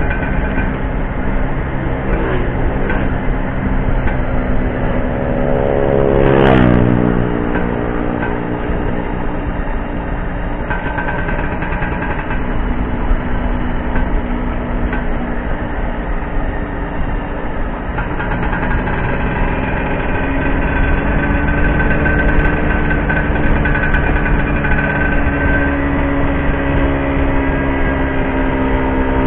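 Classic two-stroke Vespa scooter engine running under way, heard from the rider's seat. Its pitch falls sharply about six seconds in, then climbs gradually from about two-thirds of the way through as it picks up speed.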